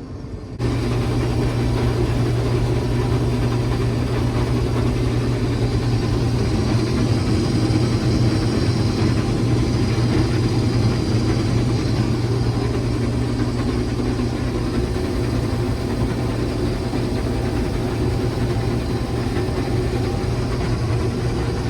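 Combine harvester running steadily with a deep, even engine hum. It comes in abruptly about half a second in, then holds level.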